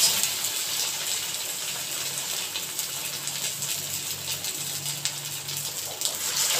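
Minced chicken balls deep-frying in hot refined oil in a kadai, a steady crackling sizzle. Near the end another ball goes into the oil and the sizzle grows louder.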